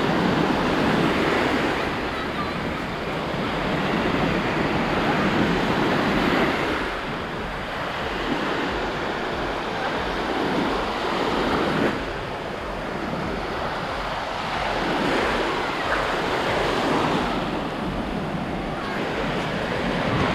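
Small Black Sea waves washing in at the shoreline, the surf surging and easing every few seconds.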